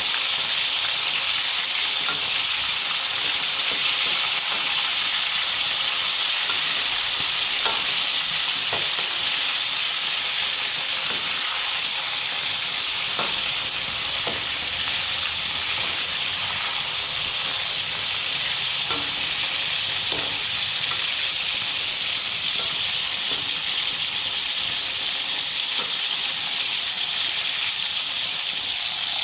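Steady hiss of running water, with a few faint scattered clicks and knocks.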